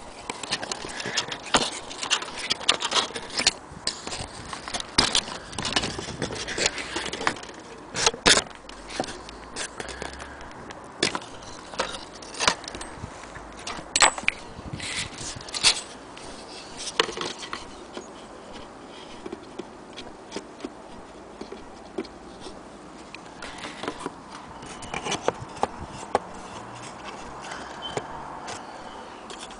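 Irregular clicks, knocks and light rattles as the wooden parts of a vintage cuckoo clock are handled and moved about; the knocks come thick and fast at first and grow sparser in the second half.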